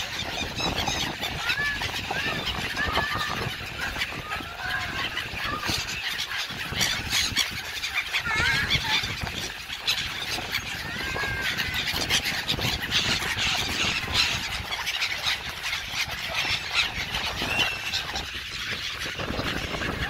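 A large flock of gulls calling constantly in short, squealing cries as they crowd around a hand offering food, over a steady low rumble of wind on the microphone.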